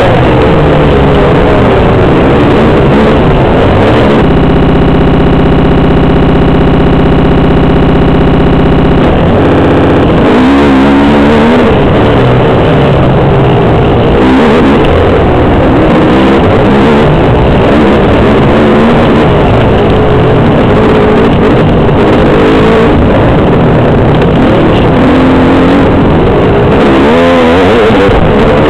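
Yamaha YZ250 two-stroke dirt bike engine revving hard as it is ridden along a rough trail, its pitch rising and falling with the throttle, loud and distorted on a helmet-mounted camera. For about five seconds near the start the engine note holds steady.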